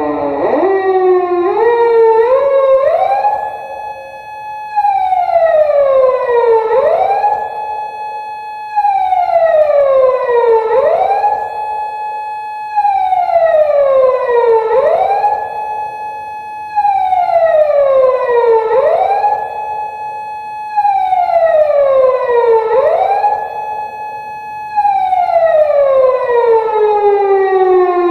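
Japanese unmarked police car siren wailing: it winds up in quick rising steps over the first few seconds, then sweeps up, holds its high pitch and falls again about every four seconds, and slowly winds down near the end.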